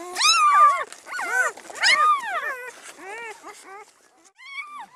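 Newborn Great Pyredane puppies crying: about half a dozen high, squeaky cries, each rising then falling in pitch, with a short lull near the end.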